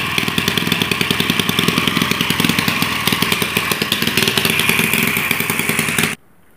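Small hand-built petrol engine running fast and steady with a rapid, even firing pulse, then cutting off abruptly about six seconds in.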